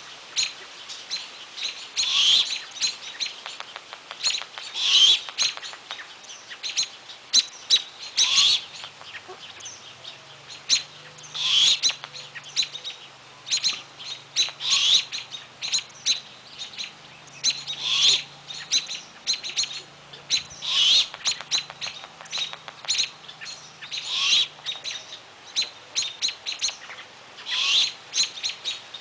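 Great horned owl owlet repeating its harsh, rasping begging screech about every three seconds, with quick chirps from other birds in between.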